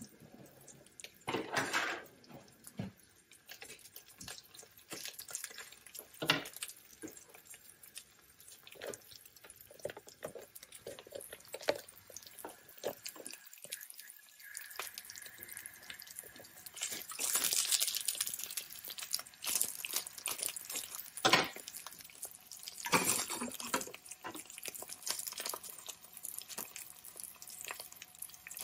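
Sticky rice frying in oil in a hot skillet, sizzling with irregular pops and crackles, which shows the pan is hot enough for the rice to brown. The sound drops out briefly about halfway.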